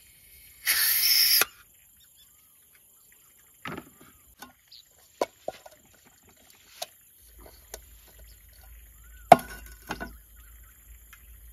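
Camp cooking gear being handled: a short, loud hissing burst near the start, then scattered knocks and clinks as a portable gas stove and a metal cooking pot are set up and put down on a folding table.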